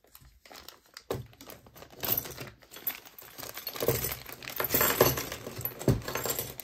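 Hands rummaging through small metal attachment parts and their packaging: irregular clinks of metal pieces and rustling, getting busier about two seconds in.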